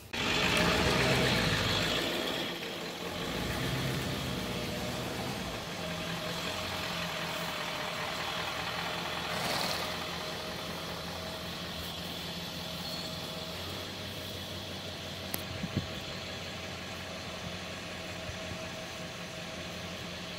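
Pickup truck engine idling steadily.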